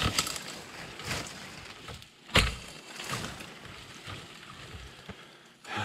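Wooden sticks being chopped by hand: a few sharp, irregular knocks, the loudest about two and a half seconds in, with scraping and rustling between them.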